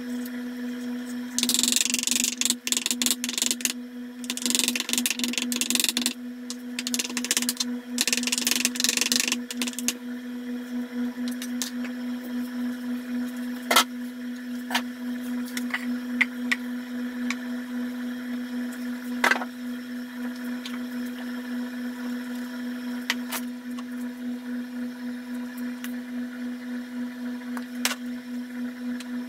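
Chef's knife chopping rapidly on a wooden cutting board as raw chicken is minced: a dense clatter of strikes for several seconds, then a few scattered single knocks. A steady pitched hum runs underneath throughout.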